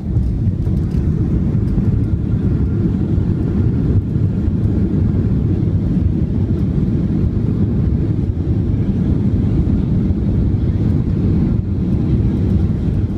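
Cabin noise inside a Boeing 737-700 rolling down the runway just after landing: a steady low rumble of the engines and the airframe rolling on its wheels.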